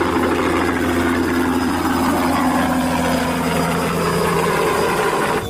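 Light helicopter's engine and rotor running steadily as it lifts off and climbs, a continuous low hum with rushing noise. The sound stops abruptly at the end.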